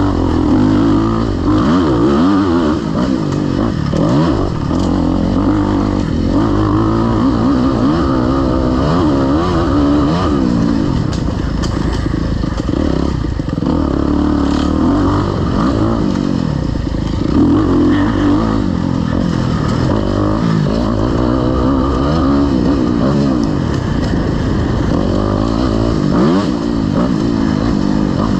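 Enduro dirt bike engine revving up and down over and over as the throttle is opened and closed, with brief dips between bursts.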